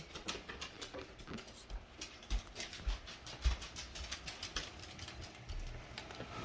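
Dogs' claws clicking and pattering on a hard floor, with a few soft thumps among them.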